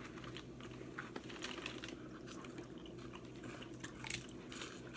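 Close-up eating sounds: chewing and crunching on seafood, with irregular sharp clicks and crackles over a steady low hum.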